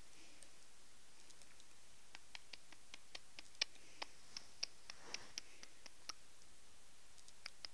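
Faint, irregular light clicks and ticks, starting about two seconds in and coming a few a second at times, with one sharper click near the middle.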